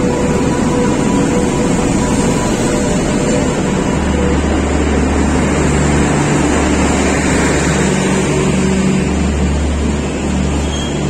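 Garib Rath Express train at the platform, a loud steady rumble of the rolling train. A steady high tone over it fades out about three to four seconds in, and a deep steady hum takes over.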